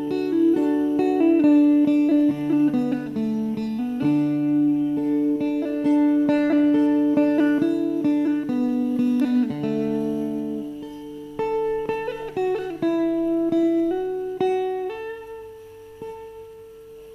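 A sape, the Bornean boat-shaped lute, playing a plucked melody. The notes thin out after about ten seconds and it ends on one held note that fades away.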